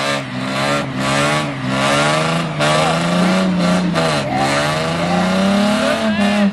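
A 1999–2004 Ford Mustang convertible doing a burnout: the engine is held at high revs, dips briefly about two and a half seconds in and again around four seconds, and climbs back, while the rear tyre spins in place and squeals.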